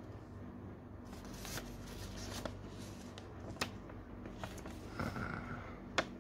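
Paper instruction leaflet rustling as it is handled and unfolded, with several sharp crackles of the paper, the loudest near the end. A low steady hum runs underneath.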